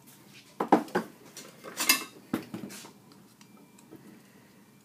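A metal screwdriver clinking and scraping against a cut-open TXV sensing bulb as the chalky fill is worked out. There are about five short clicks and scrapes, with a longer scrape about two seconds in.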